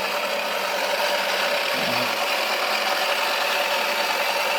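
Small electric motor of a toy washing machine running steadily, its drum turning with a cricket ball inside, giving a rough, even rubbing rattle.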